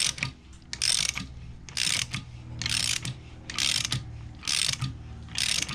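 Ratchet wrench turning the forcing screw of a harmonic balancer puller on a GM 3800 V6's crankshaft, its pawl clicking in a short burst on each return stroke, about once a second, seven times. This is the puller slowly drawing the crank balancer off.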